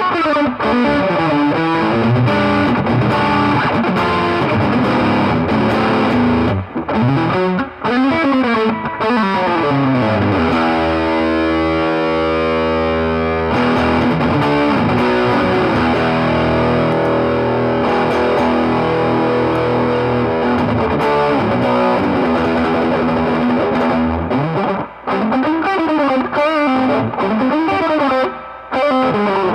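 Electric guitar played through a Mesa Boogie 5:25 Express 1x10 combo amp on a distorted tone. It plays quick single-note lines with bent notes, then held notes and chords in the middle, then more quick lines near the end.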